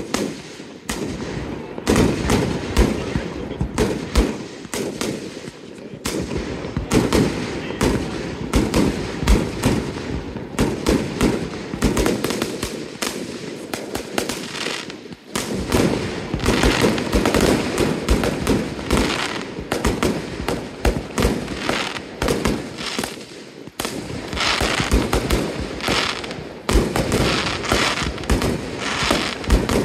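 Fireworks display: a dense, continuous run of sharp bangs from aerial shells bursting, with crackling, and barely a pause between them apart from two short dips.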